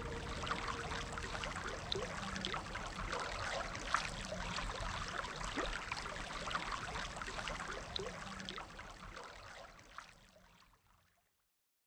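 Running water trickling, with many small crackles and ticks through it, fading out over the last few seconds.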